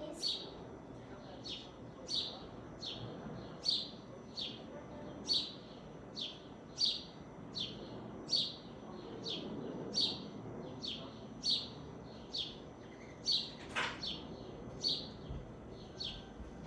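A bird chirping over and over, a short falling chirp repeated evenly about every three-quarters of a second.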